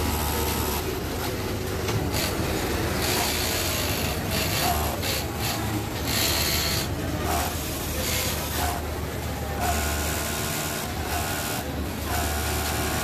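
Juki MO-6700DA industrial overlock sewing machine running in short bursts, at the start and twice in the second half, over a steady machine hum, with fabric rubbing and rustling as the garment is handled and fed between bursts.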